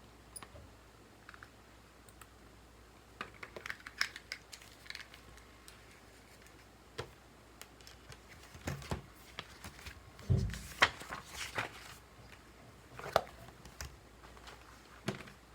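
Scattered light clicks and taps on a desk, in clusters, with a heavier thump about ten seconds in, over a faint steady low hum.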